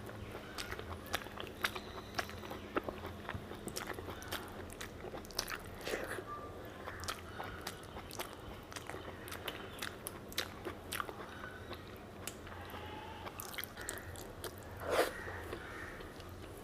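Close-up eating sounds: a person chewing mouthfuls of mutton fat curry and rice, with frequent short wet clicks and smacks of the mouth. A slightly louder mouth sound comes near the end.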